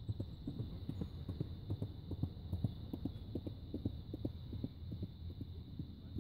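Low rumble with irregular soft thumps, several a second, on a microphone lying at ground level in grass, over a faint steady high tone.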